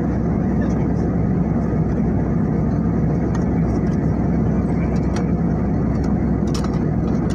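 Jet airliner cabin noise at cruise: a steady, even low rumble of engines and rushing air, heard from a window seat inside the cabin.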